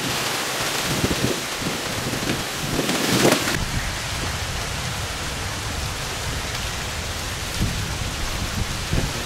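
Steady rain falling, a continuous even hiss, with low rumbling buffets in the first few seconds and a brief louder rush about three seconds in.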